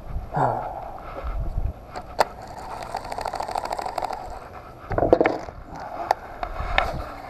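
Baitcasting reel clicking rapidly for about two seconds as it is handled and cranked, with scraping sounds and a few sharp knocks around it.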